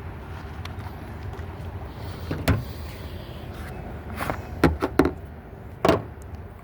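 About five short, sharp clacks from the Kel-Tec PMR-30 pistol being handled after a malfunction, over a steady low rumble.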